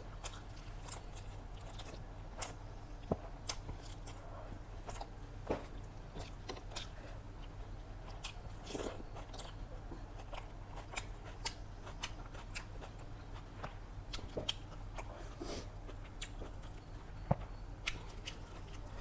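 A person chewing and biting mouthfuls of chicken biryani and salad, with many irregular sharp mouth clicks and occasional crunches, over a low steady hum.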